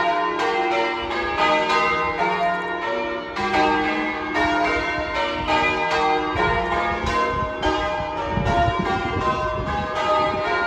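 Church tower bells ringing as a peal, one bell striking after another at a steady, even pace, their tones overlapping and ringing on.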